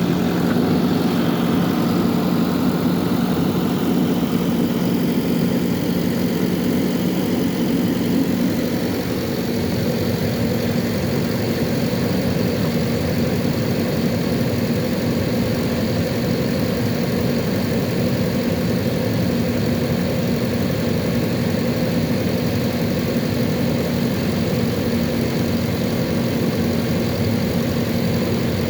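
JCB 3DX backhoe loader's diesel engine running steadily, with a slight shift in its tone in the first few seconds.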